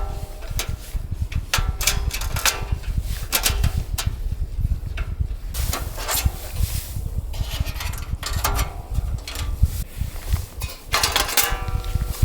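Strong wind buffeting the microphone with a steady low rumble, under a busy run of clicks, rattles and short squeaky scrapes from something being handled.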